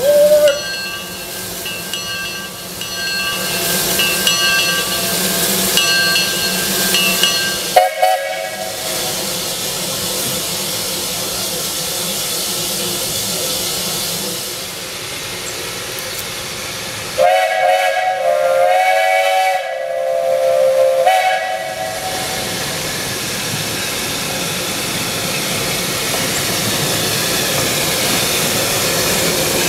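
Steam locomotive whistle blowing as a chord of several tones: a short blast rising in pitch at the start, another about 8 seconds in, and a long blast broken once near the middle. Under it, a steady hiss of steam venting from the locomotive's cylinder cocks.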